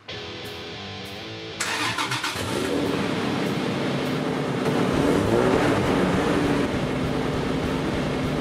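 Toyota Land Cruiser 70 pickup's 4.0-litre V6 petrol engine starting about a second and a half in, then running and revving, with background music throughout.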